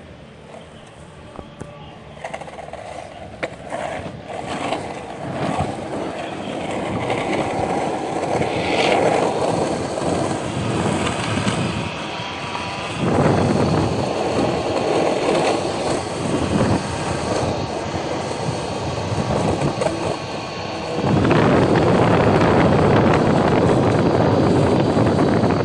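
Skateboard wheels rolling on the asphalt of a downhill path, the rolling noise growing louder in steps as the board picks up speed.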